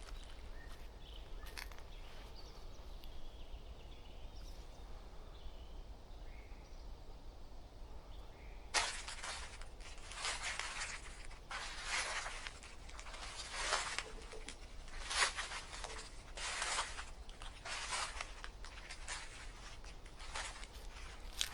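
Footsteps crunching, roughly one step a second, starting about nine seconds in; faint bird chirps before that.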